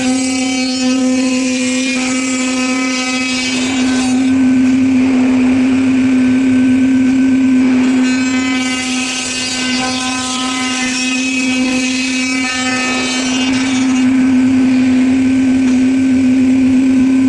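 Five-axis CNC machine running a test cut: a loud, steady hum throughout, with a harsher cutting noise on top that swells and fades every few seconds as the tool works.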